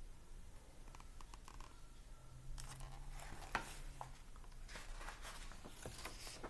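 Faint rustling and light ticks of a picture book's paper pages being handled and turned.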